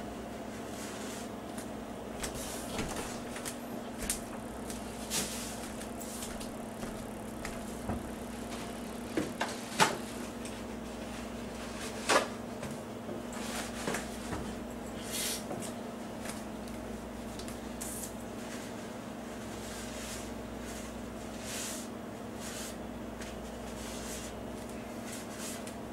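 Kitchen clatter: scattered knocks and clicks of things being handled and set down on a counter, the sharpest about ten and twelve seconds in, over a steady low hum.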